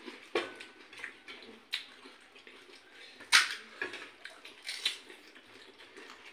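Pani puri (gupchup) being eaten by hand: crisp puri shells cracked and crunched, with wet sounds and light knocks on steel plates. A handful of separate sharp crunches, the loudest a little over three seconds in.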